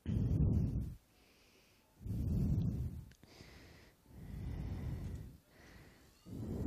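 Heavy breathing close to a microphone: four low, rushing breath puffs about two seconds apart, each lasting about a second.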